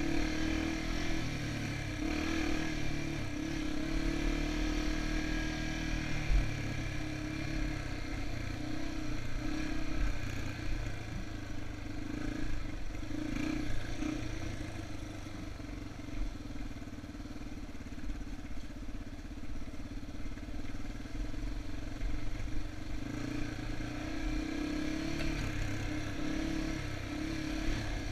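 Yamaha TT-R230's single-cylinder four-stroke engine running as the bike rides a dirt trail, its revs shifting up and down with the throttle. A single sharp knock about six seconds in.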